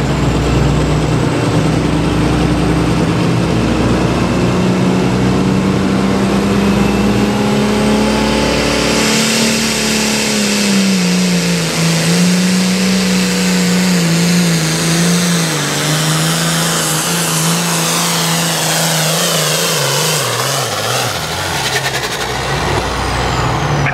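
Turbocharged hot farm class diesel tractor pulling a weight-transfer sled at full power: the engine runs steady at first, its pitch climbs about nine seconds in as the pull gets going, wavers under load, and falls near the end. A high turbo whine rises and falls above the engine in the second half.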